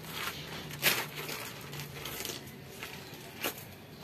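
A few soft clicks and rustles, the loudest about a second in, over faint background noise with a low hum that stops about a second in.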